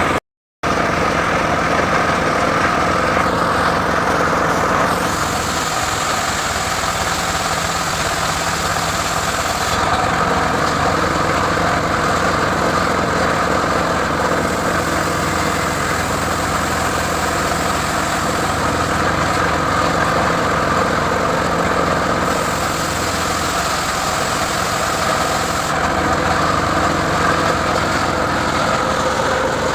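Engine of a homemade mobile circular-saw rig running steadily, with slight shifts in tone every several seconds. The sound cuts out completely for a moment just after the start.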